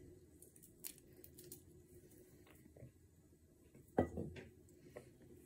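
Cooked chicken being pulled apart and stripped from the carcass: faint soft squishes and small clicks, with one sharper knock about four seconds in.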